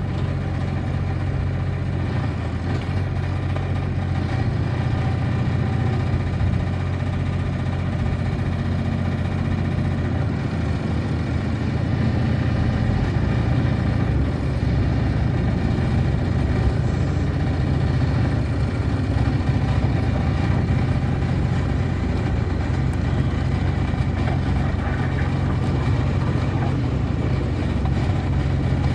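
Kubota three-cylinder diesel engine of a Bobcat 323J mini excavator running steadily, a little louder from about twelve seconds in.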